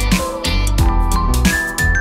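Upbeat background music with a steady drum beat, bass and sustained melody notes.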